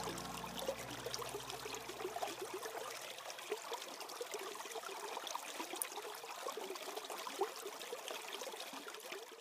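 Small stream trickling and running beneath ice shelves, a steady wash of water with many small irregular ticks. The last held chord of the music fades out over the first few seconds.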